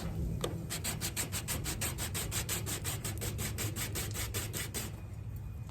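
Sandpaper rubbed rapidly back and forth over the backs of small cast jewelry pieces: quick, even rasping strokes, about five or six a second, that stop about a second before the end.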